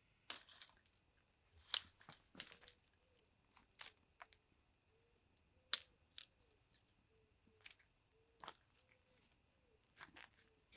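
Irregular sharp snaps and crackles of dry wood and kindling at a small fire pit, the loudest cracks about two and six seconds in.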